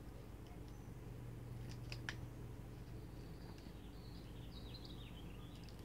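Quiet room tone with a steady low hum, over which hands handling hair and a clear elastic make faint rustles and small clicks, the sharpest about two seconds in. A faint high chirping wavers from about three seconds in.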